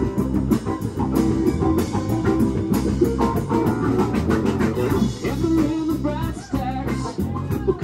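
Live rock band playing with no vocals: electric guitar, bass guitar, drum kit and keyboards. A higher melodic line with wavering pitch comes in during the second half.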